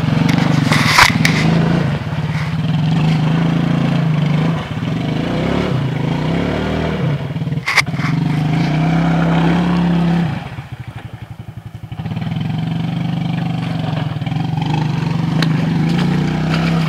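ATV engine running steadily under throttle as the quad churns through deep mud, easing off for about two seconds around ten seconds in, then picking back up. A sharp knock about a second in and another near eight seconds.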